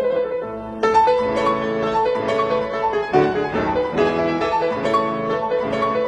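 Background piano music: a flowing melody of quick notes over sustained chords.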